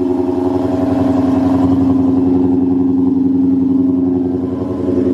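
Whipple-supercharged Ford Mustang Cobra V8 running at a steady idle, its pitch holding even throughout.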